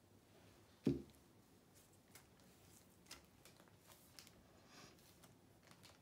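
Handling noise at a cake-spinner paint setup: one sharp thump about a second in, then a few faint clicks and taps as the turntable and paint bottle are handled.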